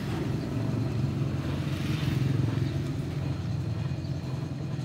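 Steady low hum of an engine running at idle, with no change in pitch or level.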